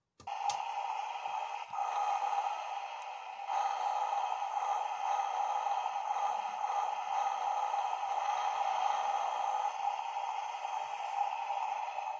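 A click as the roof button is pressed, then the Road Rippers Rammunition toy monster truck plays its electronic sound effect through its small built-in speaker, steady for about twelve seconds before cutting off suddenly.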